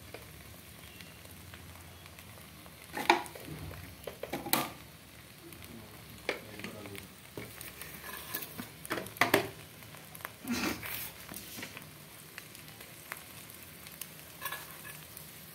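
Egg omelette frying in oil in a small pan: a low, steady sizzle, with several sharp clinks and knocks scattered through.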